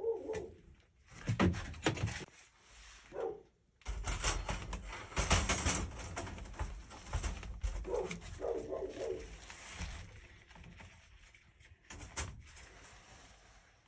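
Metal wire live-trap rattling and clanking as it is handled and its door worked, loudest in a run of clatter a few seconds in. A few short animal cries come in between.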